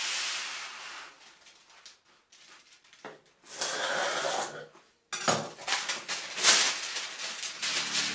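Baking paper rustling and crinkling as it is pulled off the roll and handled on a countertop, in a few noisy stretches, the loudest in the second half.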